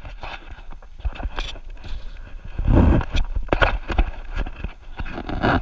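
Rubbing, clicks and knocks of a body-worn action camera jostling as its wearer moves, with a louder low bump about halfway through.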